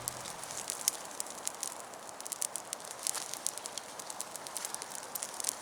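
Small campfire crackling, with many irregular sharp pops, as a fire freshly rekindled from old coals takes hold.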